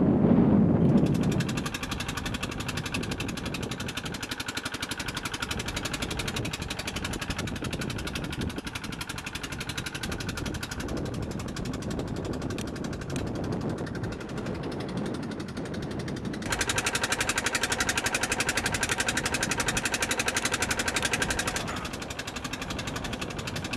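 A motor running steadily with a fast, even beat, louder for about five seconds in the second half. A low rumble fills the first second or so.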